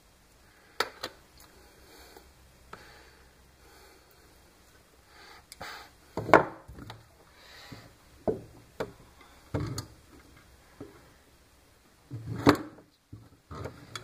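Pliers and stiff wire clicking and knocking on a wooden workbench as the wire is bent by hand: scattered sharp knocks, the loudest about six and about twelve seconds in.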